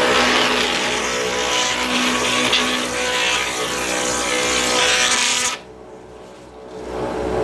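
Benchtop router running at speed with a steady whine, cutting wood with a rushing hiss. About five and a half seconds in the sound drops away sharply, then comes back up near the end.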